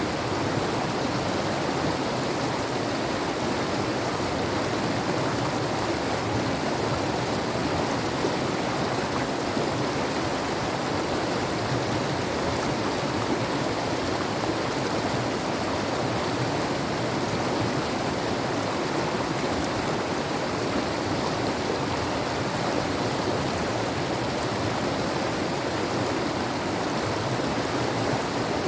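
Fast mountain river rushing over its bed: a steady, even roar of running water with no change in level.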